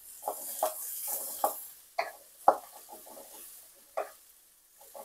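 Wooden spatula stirring vegetables in an aluminium kadai, scraping against the pan in short strokes about every half second, while the vegetables sizzle in oil and butter. The sizzle fades after about a second and a half.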